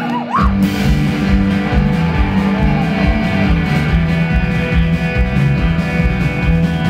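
A live band's guitars kick in with a steady beat about half a second in, playing a country-rock song after a brief whistle from the crowd.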